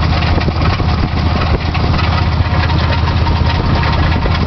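Chevy S10's 4.3 Vortec V6 idling steadily, with a fast rattle from the front of the engine by the crank, which the owner suspects is the crankshaft or timing chain.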